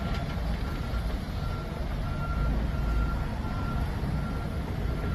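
A semi-truck's diesel engine runs with a steady low rumble as the rig moves slowly, while a reversing alarm beeps at a high, even pitch, about three beeps every two seconds.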